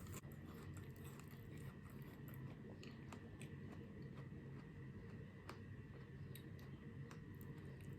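Faint close-up chewing of chocolate-covered fruit, with soft scattered mouth clicks over a steady low room hum.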